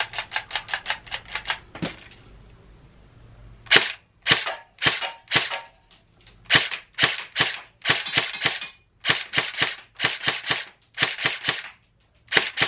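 Rapid ratcheting clicks of an airsoft high-cap magazine's winding wheel being turned, stopping about two seconds in. After a short pause, an HK416C airsoft electric gun fires a string of single shots, roughly two a second.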